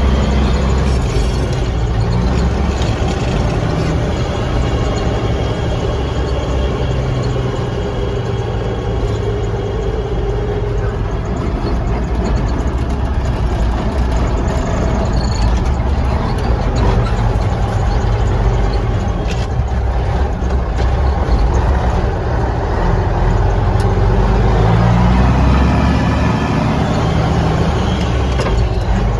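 Mack B-61 truck's diesel engine running under way on a freshly repaired injection pump, its pitch shifting as it goes through the gears and climbing steadily a few seconds before the end as it revs up.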